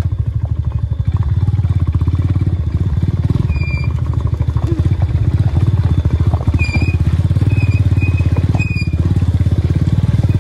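Motorcycle engine running steadily under way on an off-road ride. A few short high-pitched chirps sound over it around the middle and later on.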